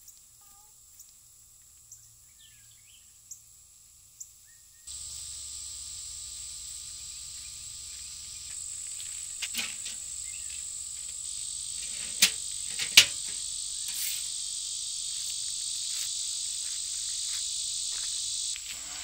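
Steady high-pitched chorus of summer insects, louder from about five seconds in. In the middle come a few sharp metal clicks, the two loudest about a second apart, from a metal rural mailbox being opened and its flag raised.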